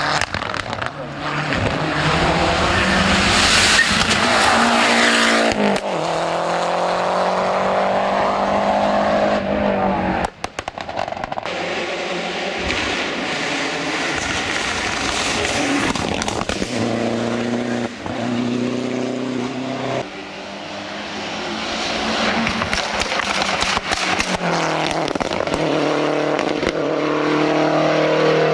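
Lancia Delta Integrale rally car's turbocharged four-cylinder engine at full throttle on a hillclimb, the revs climbing over a few seconds and dropping sharply at each gear change, over several passes. There is an abrupt break in the sound about ten seconds in.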